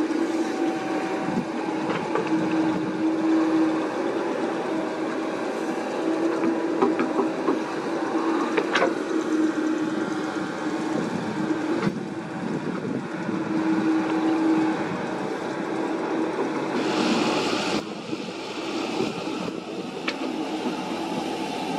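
Komatsu PC78US mini excavator's diesel engine and hydraulics running steadily under load with a constant whine while the bucket digs and dumps soil. A few sharp knocks come through, and there is a brief hiss near the end.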